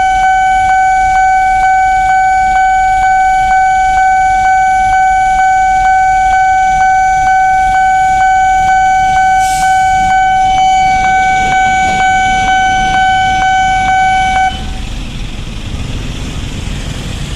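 Railway level-crossing warning alarm sounding a loud, steady high tone with a regular tick about three times a second, then cutting off suddenly about fourteen seconds in as the crossing clears and the barrier goes up. Idling motorbike and street traffic noise follows.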